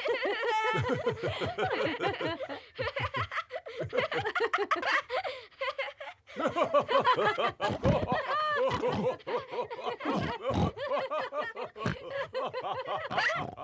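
Several cartoon characters' voices laughing together in a long bout of chuckling laughter, with a short lull about six seconds in.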